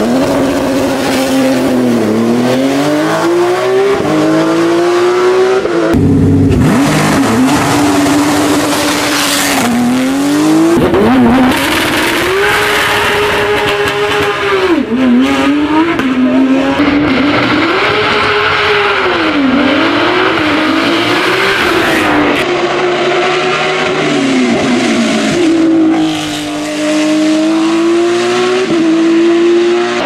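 Porsche 991.2 GT3 Cup's 4.0-litre naturally aspirated flat-six racing engine revving hard. Its pitch climbs and drops over and over as the car accelerates and shifts gear.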